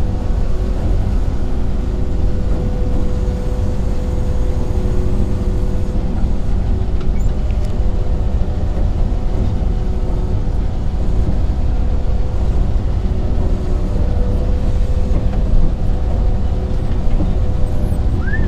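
Bizon BS Z110 combine harvester running steadily at work, heard from inside its cab: a loud, even rumble of engine and threshing machinery, with a steady whine over it.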